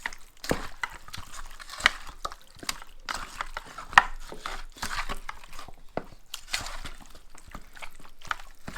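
Raw chicken pieces being mixed in an oily spice marinade, with irregular wet squelches and clicks and one sharper click about four seconds in.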